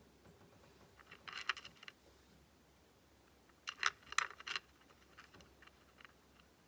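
Syrian hamster rummaging in a plastic bowl of dry pellet food, giving two short bursts of crisp clicking and crunching: one about a second in, the other near four seconds.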